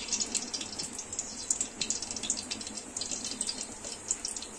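Cooking oil heating in a kadai, a steady light sizzle full of small irregular crackles and pops as it fries the leftover spice bits in the pan.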